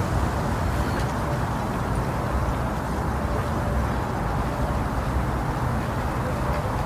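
Steady, low rushing white noise made to simulate the sound of the womb, used to lull a baby to sleep. It keeps an even level throughout, deep and muffled, with little high hiss.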